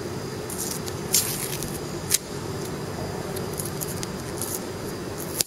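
Seventeen Ice ice cream wrapper being peeled and torn open by hand: crinkling and rustling in short bursts, with a sharp snap about two seconds in, over a steady low rumble.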